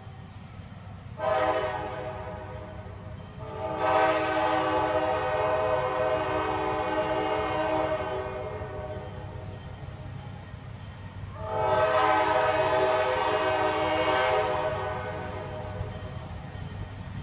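Train horn sounding three times, a short blast and then two long ones, each a chord of several notes, over the train's steady low rumble.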